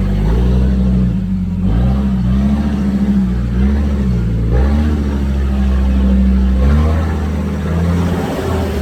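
Troller 4x4's engine running loud, its pitch rising and falling in several short revs, then holding steadier for the last few seconds.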